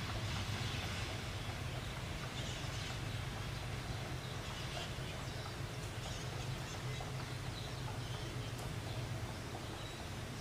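Diesel locomotive engine running with a steady low drone as the helper unit pushes at the rear of a loaded freight train, growing slightly fainter as it moves away.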